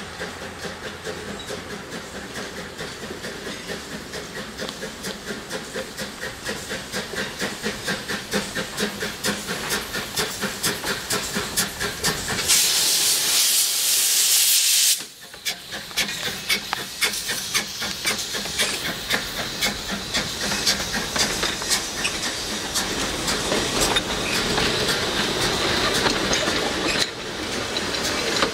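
Henschel steam tank locomotive working past with a passenger coach: a steady rhythm of exhaust chuffs that grows louder as it approaches. About halfway, a loud hiss of steam from its cylinder drain cocks lasts two or three seconds and cuts off suddenly. The chuffing then carries on with the rolling clatter of the coach's wheels.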